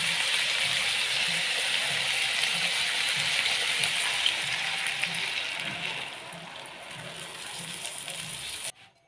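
Pork and onions sizzling in a stainless steel frying pan as water is poured in; the sizzle dies down to a quieter hiss about six seconds in, then stops abruptly near the end.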